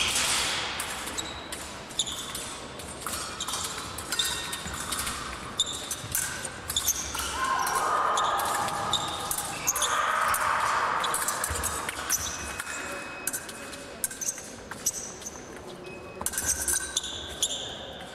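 Épée blades clicking and clashing with short metallic rings, mixed with fencers' feet thudding on the piste, echoing in a large hall. A rushing noise swells for a few seconds in the middle.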